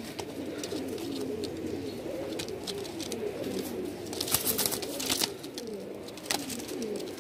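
Domestic pigeons cooing, many calls overlapping without a break. A few short, sharp clicks stand out about four to five seconds in and once more near the end.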